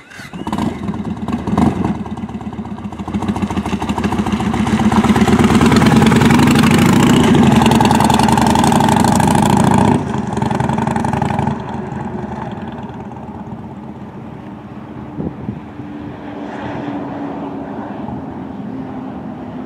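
2009 Yamaha Warrior's 1670 cc V-twin engine running as the motorcycle is ridden. It grows louder as the bike accelerates over the first several seconds, then drops suddenly about halfway through and runs quieter for the rest.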